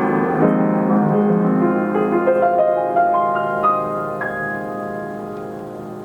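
A Steinway Model S grand piano, played by its Ampico B reproducing action from a paper roll. A chord is struck, then a run of single notes climbs upward and ends on a high note, and the sound dies away.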